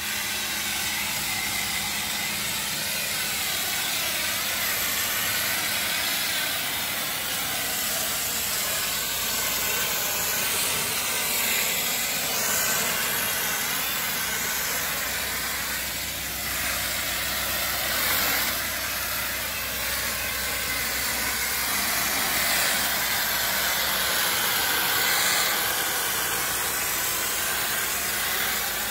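Compressed-air water spray gun hissing as it blasts a fine jet of water mist onto a car, a steady hiss that swells and eases a little as the spray is aimed about.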